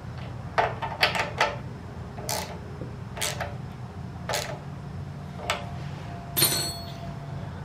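Irregular metallic clicks and taps of hand tools and small parts as the new carburetor's 10 mm mounting nuts on a Predator 212cc engine are snugged down and the throttle linkage is handled, about one a second. Near the end there is a brighter metal clink that rings briefly. A steady low hum runs underneath.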